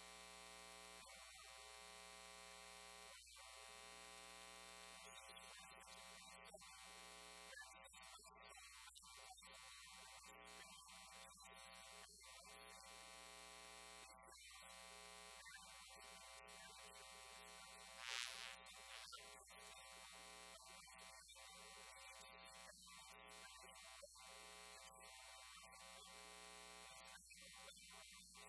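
Near silence with a faint, steady electrical mains hum and buzz on the sound system, and one brief faint noise about eighteen seconds in.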